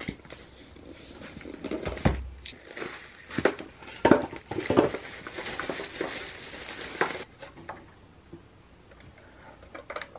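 Unpacking a boxed waffle maker: cardboard packaging handled and the plastic bag around the appliance crinkling, with scattered knocks and clicks of its hard plastic casing. The handling noise is busiest in the middle and dies down after about seven seconds.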